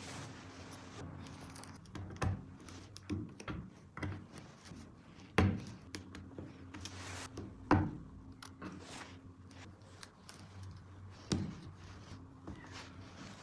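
Plastic toy track pieces being handled, with several sharp clicks and knocks, the loudest about five and a half and almost eight seconds in, over a faint steady hum that comes and goes.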